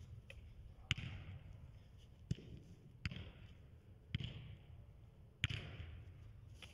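Soccer ball being kicked and controlled in a passing drill: five or six sharp strikes roughly a second apart, each followed by an echo from the large indoor hall.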